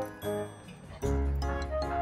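Background music: melodic notes that thin out briefly, then come back in with a low bass about a second in.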